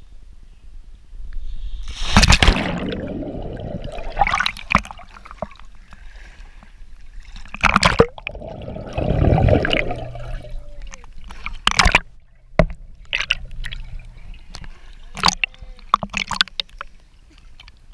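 Swimming-pool water splashing and sloshing around a GoPro camera as it dips under the surface and comes back up, with gurgling underwater. Several loud splashes stand out through the stretch.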